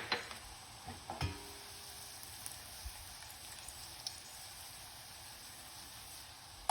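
Hot ghee sizzling in a pan with grated ginger, black pepper and freshly added cumin seeds, a steady frying hiss. A few knocks of a utensil against the pan come in the first second and a half, one with a short metallic ring.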